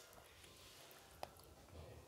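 Near silence: faint room tone with one soft click a little past a second in.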